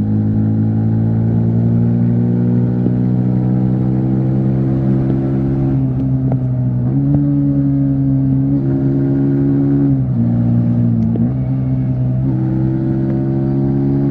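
Yamaha MT-15 V3's single-cylinder engine running steadily at highway speed, its note stepping up and down in pitch several times with changes of throttle and gear.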